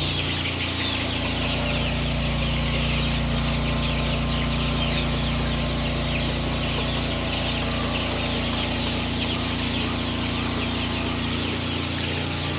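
A large flock of young chickens peeping and cheeping continuously, with many high calls overlapping, over a steady low hum.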